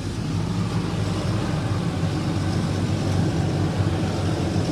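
Fendt tractor's diesel engine running steadily, heard through the open cab door.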